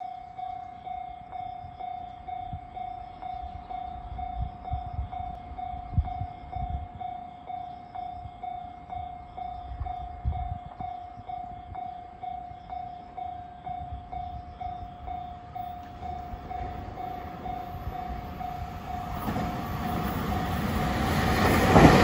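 Japanese level-crossing alarm ringing steadily, a repeating electronic ding about twice a second. Over the last few seconds a 521 series 1000 electric train approaches, and the rumble of its wheels on the rails builds until it is loudest as the train passes at the end.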